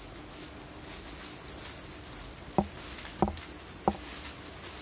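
Clear plastic packaging crinkling softly as it is handled while a microphone is unwrapped. In the second half come three short sharp knocks, about two thirds of a second apart.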